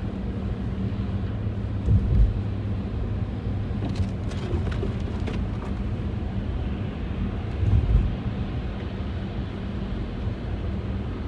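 Car driving along a snowy road, heard from inside the cabin: a steady low rumble of road and engine noise with a low hum, and two low thumps about two and eight seconds in.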